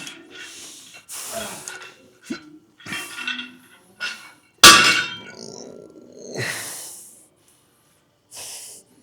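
A weightlifter breathing hard and forcefully through a set, several sharp breaths in a row. About four and a half seconds in, gym weights are set down with a single loud metal clank that rings briefly, followed by a long heavy exhale and one more breath near the end.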